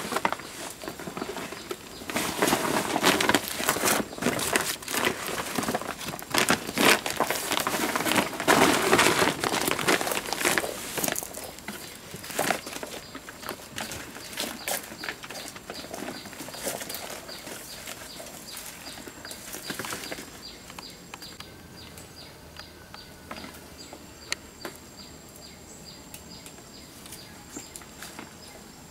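Leafy undergrowth rustling and crackling as plants are picked and pushed through by hand, loudest in the first half, then dying down. Through the quieter second half, a faint short high chirp repeats about twice a second.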